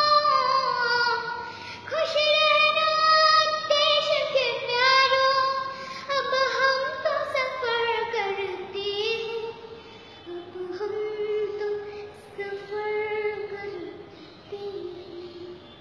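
Young girl singing solo without accompaniment, long held notes that bend up and down. After about eight seconds she drops lower in pitch and sings more softly.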